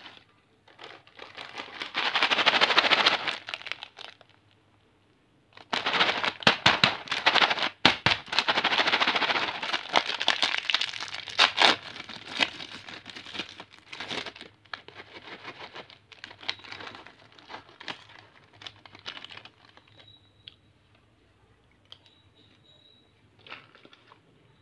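Foil-lined plastic snack packet being crinkled and torn open by hand: loud crackling rustles in two long bursts, full of sharp crackles. After that the rustling goes softer and sparser, and it dies away near the end.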